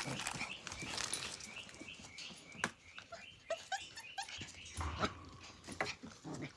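Australian Cattle Dog puppies whimpering and yipping in short high-pitched squeaks as they play, with scattered clicks in between.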